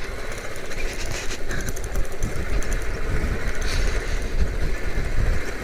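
Motorcycle riding over a rough dirt track, heard as a loud, uneven wind-and-road rumble on the rider's microphone with no clear engine note.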